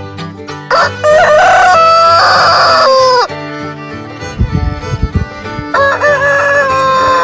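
Rooster crowing twice, two long cock-a-doodle-doo calls a few seconds apart, each ending in a falling note, over background music.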